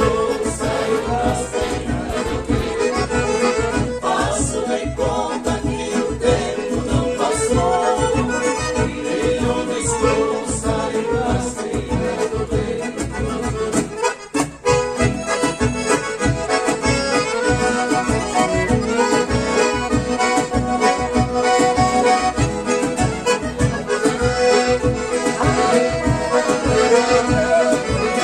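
Accordion-led bandinha dance music with a steady bass beat; the music drops out briefly about fourteen seconds in.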